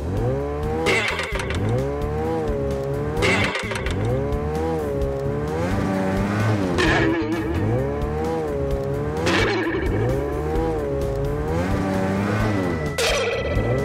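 Cartoon car-engine revving sound effect on a loop, its pitch rising and falling about once a second, over background music. A sharp hit comes every two to four seconds, about five in all.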